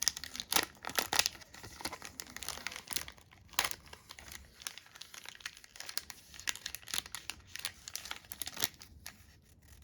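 Foil wrapper of a Pokémon card booster pack crinkling and tearing as it is opened by hand, in many irregular crackles.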